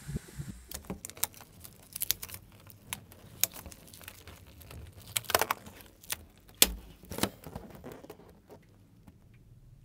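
Gloved hands knotting and handling an inflated rubber balloon: irregular rubbery squeaks, crinkles and clicks, with a few sharper snaps in the middle that die away toward the end.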